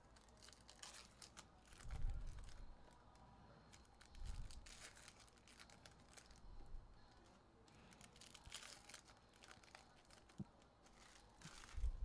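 Foil wrappers of Panini Contenders football card packs crinkling and tearing as the packs are ripped open, faint and on and off, with a few soft thumps about two and four seconds in and again at the end.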